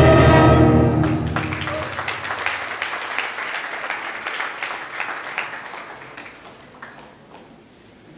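Choir and brass section, with trombones, holding a final chord that cuts off about a second in, followed by audience applause that fades away.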